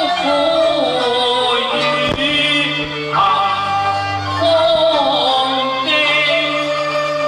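Cantonese opera ensemble music: a sliding bowed-string melody over sustained bass notes, with a single sharp percussion strike about two seconds in.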